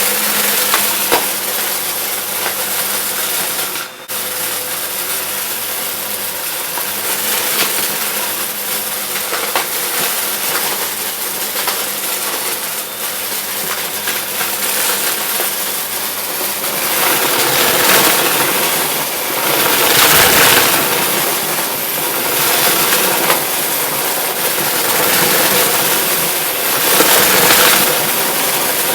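Vacuum cleaner running while sucking up confetti, its steady motor drone overlaid with crackling as the pieces rattle through; the machine is clogged. The crackling swells louder and surges in the second half.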